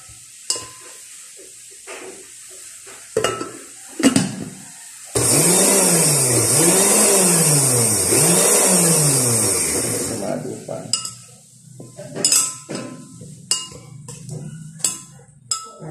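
A metal spoon clinking and scraping against a glass blender jar as basil is stirred and pushed down. For about five seconds in the middle a loud rushing noise comes in suddenly, with a low pitch that rises and falls three times, then fades out.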